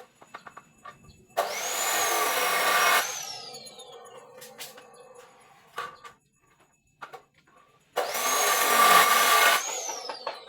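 A handheld electric power tool run in two short bursts, each about a second and a half long, with a high whine that winds down as the motor coasts to a stop after each release. Light knocks and taps in between.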